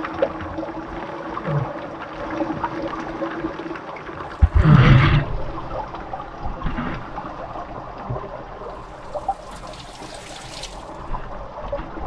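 Water trickling and dripping over rocks, with a brief louder thump about halfway through.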